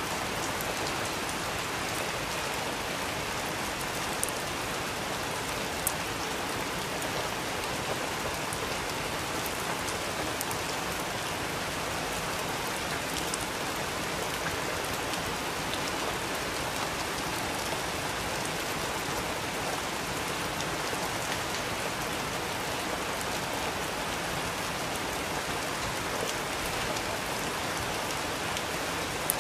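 Steady rain falling on pavement, an even, dense hiss. A few single drops strike close by, sharper and louder than the rest.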